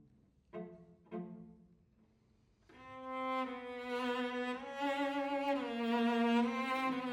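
Solo cello: two plucked pizzicato chords that ring and die away, a short pause, then a long bowed melody line of sustained notes that change pitch every second or so.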